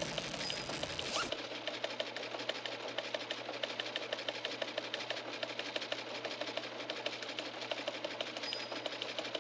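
A steady, rapid mechanical clicking, several clicks a second, like a machine running, with a whooshing sweep in the first second.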